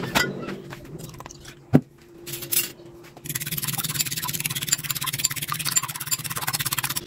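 Metal fork beating raw eggs in a ceramic bowl: rapid scraping and clinking strokes that start about three seconds in and keep going. Before that, a single sharp knock.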